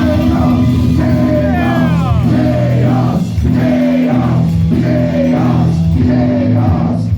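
Loud rock music with singing over held low chords.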